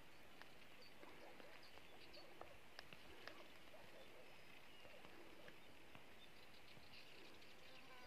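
Near silence: faint open-air countryside ambience with scattered small chirps and clicks.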